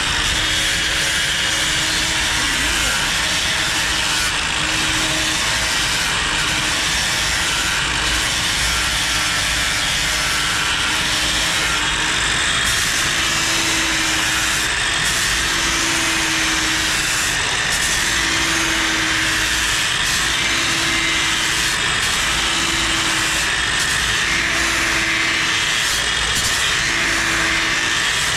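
Electric power tool grinding or sanding steel continuously, a steady hissing rasp with a faint motor hum that comes and goes.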